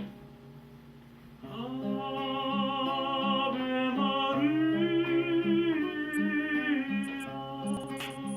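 Acoustic guitar played in a steady beat, with a melody voice coming in about one and a half seconds in and singing long, sliding held notes over it.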